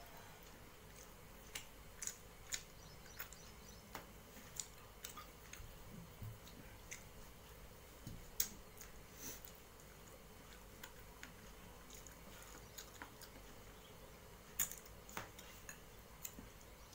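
Eating by hand from a metal plate: scattered soft clicks and smacks of chewing, with fingers working fish off the bone against the plate. A couple of sharper clicks stand out, about eight and fifteen seconds in.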